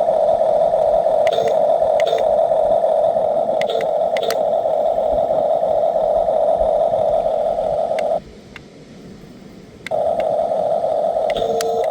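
1/16-scale RC bulldozer running with a loud, steady whine that cuts out about eight seconds in for under two seconds, then starts again. Short clicks with brief beeps come a few times, mostly in the first half.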